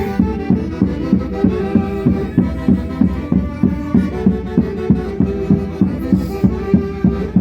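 Andean folk orchestra playing the family's characteristic Santiago greeting tune, with a melody over a steady drum beat of about three strokes a second.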